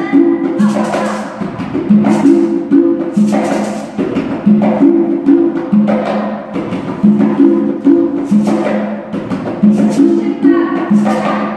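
Cuban rumba guaguancó music: percussion playing a repeating rhythm of sharp strokes and short low drum notes.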